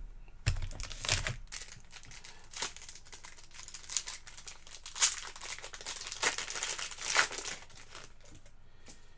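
A trading card pack wrapper crinkling and tearing as it is opened, in irregular crackles that stop a couple of seconds before the end.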